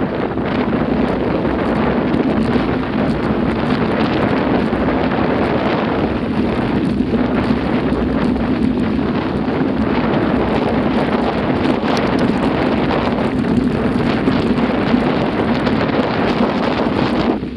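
Wind buffeting the microphone of a camera riding on a mountain bike, over the steady crunch and rattle of knobbly tyres on a gravel track. The noise drops in level near the end.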